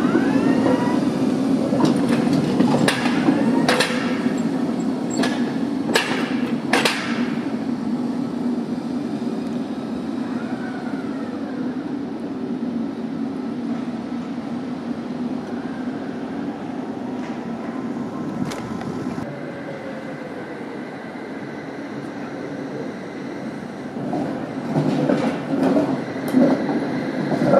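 Tatra T3 street tram rolling past on cobbled street track. Its motors hum steadily while the wheels knock sharply several times over points and rail joints in the first seven seconds, with a thin wheel squeal in the curve. Near the end a second T3 grows louder, knocking as it crosses the junction close by.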